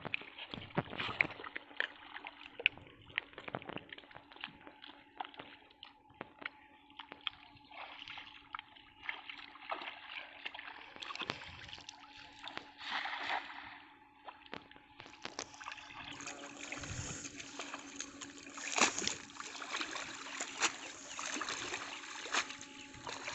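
Wading through shallow water and soft mud, with splashing and sloshing and many short sharp splashes, as a cast net is thrown into the water and hauled back in. The water noise grows denser in the second half, when the net is being drawn in.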